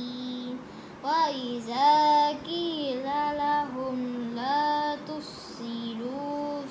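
A boy reciting Quranic verses in a slow melodic chant, holding long drawn-out notes that slide up and down between short breaths.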